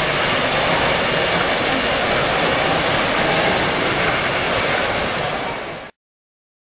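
Three-rail O-gauge model train rolling along the layout's track, a steady rushing rumble that cuts off suddenly about six seconds in.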